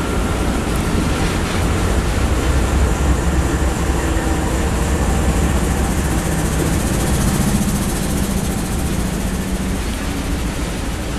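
A lashup of diesel-electric freight locomotives rolling slowly past at very close range: a steady low engine note over the rumble of wheels on rail.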